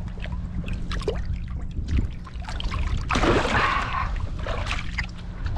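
Water splashing and trickling at the side of a kayak as a caught speckled trout is let go, with a louder splash about three seconds in. Low wind rumble on the microphone and a faint steady hum that stops near the end.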